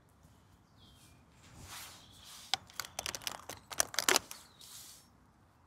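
Black plastic seedling cell tray crackling and clicking as onion seedlings are pushed out of their cells, with gloved hands rustling in soil. The crackling builds to a quick cluster of sharp clicks about four seconds in, then stops.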